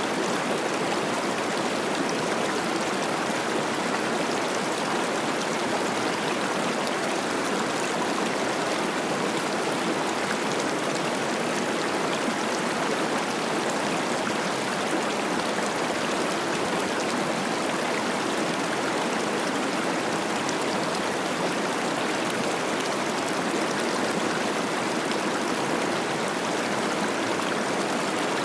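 The Cache la Poudre River running high with spring snowmelt: a steady, even rush of flowing water.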